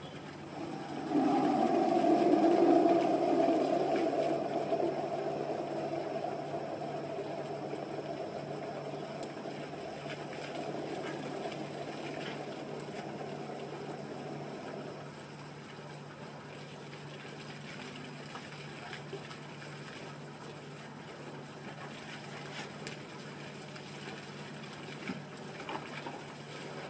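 Small solar-powered fountain pump running with a steady hum, its jet of water splashing into a plastic tub. A louder rushing sound sets in about a second in and fades slowly over the next dozen seconds.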